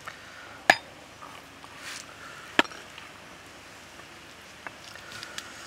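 Two sharp knocks of a knife striking a wooden cutting board as grilled octopus is cut, about two seconds apart, followed by a few faint ticks of handling near the end.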